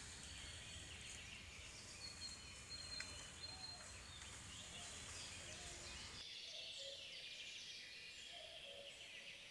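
Faint forest ambience: a soft high hiss of insects with scattered faint, distant bird calls. A low background rumble drops out about six seconds in.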